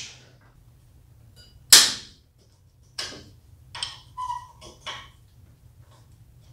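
Hand wrench on a manifold bolt: a handful of sharp metallic clicks and clinks as it is fitted and worked, the loudest about two seconds in, one with a brief ring about four seconds in.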